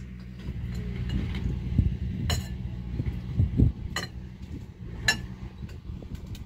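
Metal tongs clinking against a ceramic bowl as food is tossed in it: three sharp ringing chinks with a few softer knocks between, over a steady low rumble.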